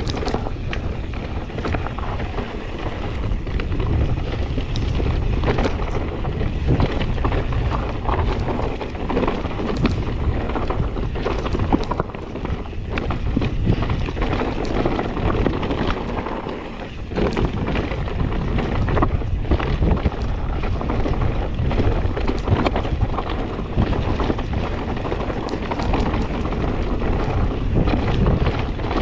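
Wind buffeting a helmet or bike-mounted action-camera microphone during a fast mountain-bike descent, with tyres running over a rough trail and a constant patter of small knocks and rattles from the bike over bumps.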